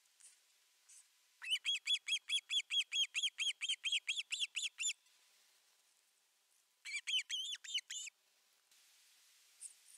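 Osprey calling at the nest: a rapid run of about twenty sharp, repeated calls, some five a second, then after a short pause a second, shorter run of about seven.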